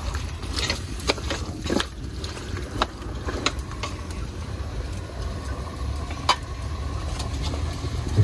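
A cooking utensil scrapes and knocks against the pot in short sharp clicks, several in the first few seconds and one more a little past the middle, as duck meat is stir-fried until it firms up. A steady low rumble runs underneath.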